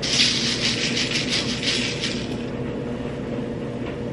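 Quick back-and-forth scraping strokes, about five a second for roughly two and a half seconds, over a steady hum.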